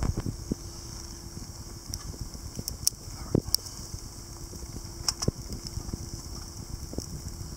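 Freshly lit fatwood and split-kindling fire crackling in a stainless steel folding camp stove, with a few scattered sharp pops.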